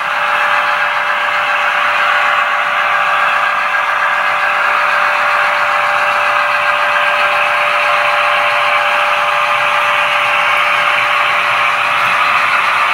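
HO-scale Intermountain GP10 model diesel locomotives running together in a consist along the track, giving a steady, even mechanical running noise with a steady whine.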